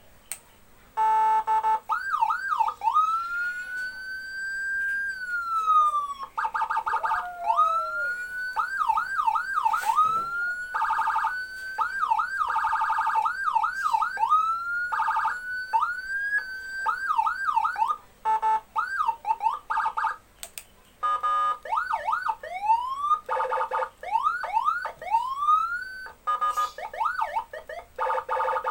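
Senken CJB100BD 2-in-1 electronic siren module running through its tones: fast yelping sweeps, a slow rising and falling wail, and harsh buzzing horn blasts, switching from one pattern to the next every few seconds with brief breaks.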